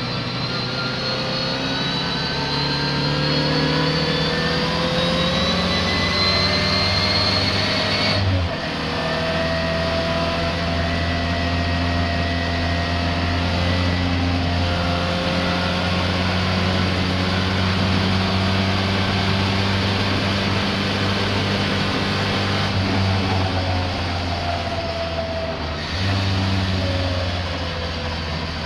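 Racing car engine at speed, its pitch climbing for about eight seconds before a gear change drops it, then holding fairly steady before dipping and picking up again near the end. The car is running with a misfire.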